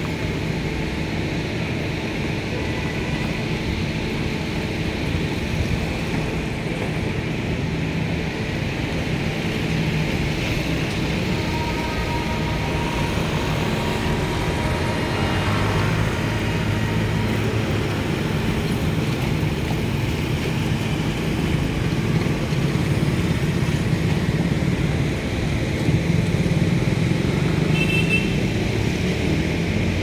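Steady rumble of city road traffic, with a brief high-pitched tone near the end.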